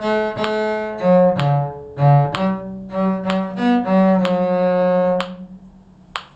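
Bowed string instruments playing a short passage of a simple tune in a low and a higher part, note by note, ending on a long held note about five seconds in. A single sharp click follows near the end.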